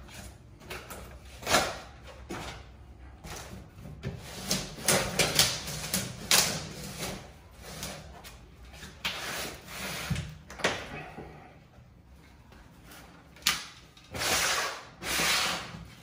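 An AEG washer-dryer being rocked and walked off its cardboard base and shifted across the floor: irregular knocks, scrapes and cardboard rustling, with a couple of longer scraping slides near the end.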